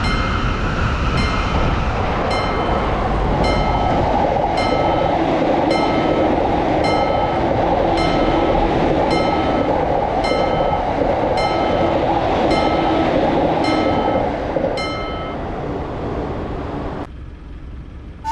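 Japanese level crossing warning bell ringing about once a second while an electric train passes, its rushing running noise swelling a few seconds in. The bell and the train noise stop a few seconds before the end.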